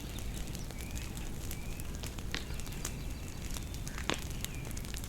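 Bonfire crackling and popping: irregular sharp pops, the loudest about four seconds in, over a low steady rumble. A few short, faint bird chirps are heard.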